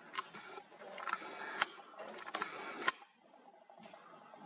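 Camera zoom lens motor whirring in three short runs with sharp clicks, picked up by the camera's own microphone; it stops about three seconds in.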